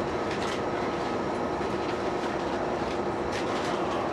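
Steady interior noise of a JR E233-2000 series electric train car, an even hum with a faint steady tone and a few light clicks.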